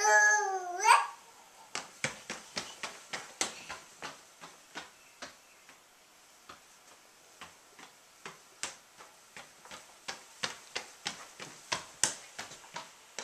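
A toddler's brief voiced cry that dips and then rises in pitch in the first second, then light, quick footsteps on a hardwood floor, about three steps a second, pausing briefly around the middle.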